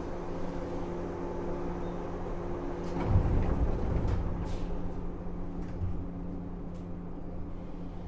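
Interior sound of a JR 103 series electric train's motor car: a steady hum with several held tones, and a heavier low rumble about three seconds in that lasts a second or so, with a few faint clicks.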